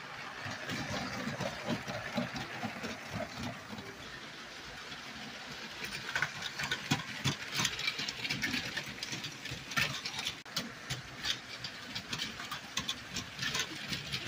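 Motorized Lego trains running on plastic track: a steady motor whir with irregular clicking and clattering of the wheels over the rail joints. The clicks become busier about halfway through.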